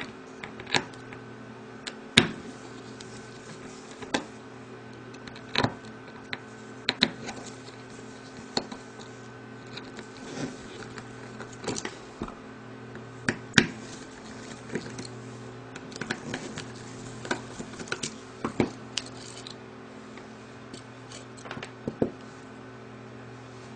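Irregular small clicks and taps of a screwdriver and screws against a Maxtor hard drive's circuit board and metal casing as the damaged PCB is unscrewed and taken off, over a steady low hum.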